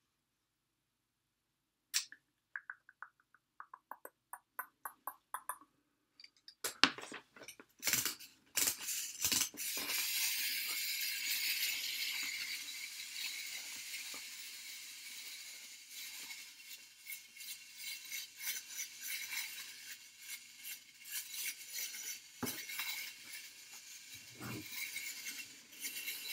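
Small tin toy robot being handled: a run of short ringing metallic clicks, then from about six seconds in a steady high whirring with rattles and clinks that slowly fades.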